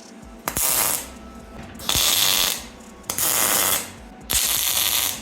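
A ratcheting hand tool worked in repeated strokes: four runs of rapid clicking, each under a second long, coming about every second and a quarter.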